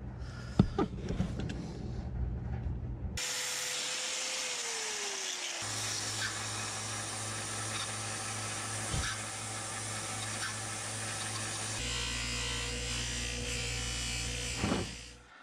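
A few clicks as a small screw clamp is tightened on the knife handle. Then an electric bench buffer runs steadily with a buffing wheel as the wooden handle is polished, its whine dropping once and the sound changing abruptly twice.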